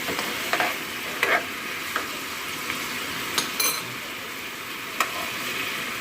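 Pork belly sizzling in a hot pan as it is stirred, with a utensil scraping and clicking against the pan several times, once with a brief metallic ring.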